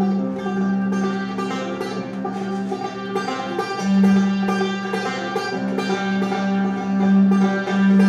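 Banjo and double bass playing an instrumental together: the banjo picks a quick run of bright plucked notes over the bass's long, sustained bowed notes, which swell louder about four seconds in.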